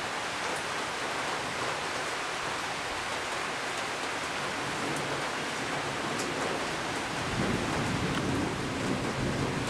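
Steady rain falling, heard as an even hiss, with a low rumble coming in about seven seconds in.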